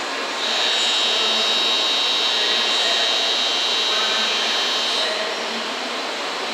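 Shinkansen platform departure bell ringing, a steady high electronic ring that starts about half a second in and cuts off about five seconds in, over steady station noise.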